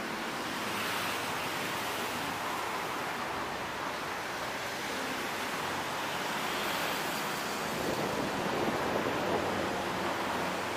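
Steady rush of road traffic, cars and motorcycles passing on a busy multi-lane city road, swelling a little about eight seconds in.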